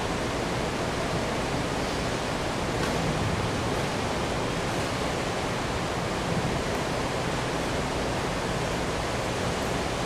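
Steady, even hiss of background room noise, with a few faint ticks.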